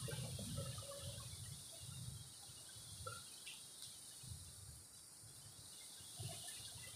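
Faint outdoor ambience: a steady high-pitched insect drone with a few scattered bird chirps, over irregular low muffled thumps on the phone microphone.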